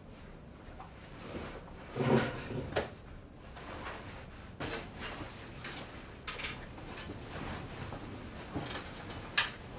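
Irregular wooden knocks, thumps and scrapes with fabric rustling: a person moving about on the wooden deck framing and dragging a heavy blanket over it. The loudest thump comes about two seconds in, and a sharp click comes near the end.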